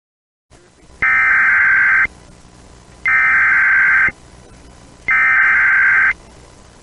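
Emergency Alert System SAME header: three identical one-second bursts of buzzing data tones, a second apart, over a faint radio hiss. They mark the start of a new alert message.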